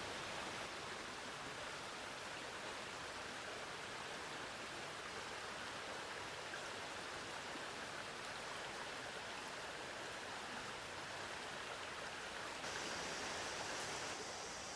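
Steady rushing water sound of rain falling and a mountain stream flowing. Near the end it shifts to a brighter hiss and gets slightly louder.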